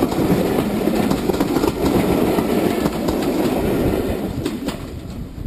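Railway passenger coaches rolling past close by: a steady wheel rumble with clickety-clack over the rail joints, dying away in the last second or so.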